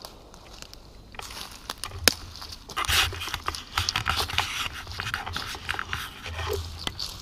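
Footsteps crunching and rustling through dry leaf litter and twigs on the forest floor, with brush crackling against the camera and a sharp snap about two seconds in.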